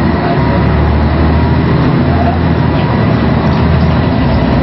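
Scania L113CRL bus's six-cylinder diesel engine running steadily under way, heard from inside the bus along with road and body noise.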